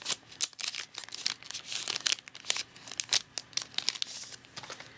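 Foil trading-card booster pack wrapper crinkling and crackling in quick bursts as it is handled and opened. It stops about four seconds in.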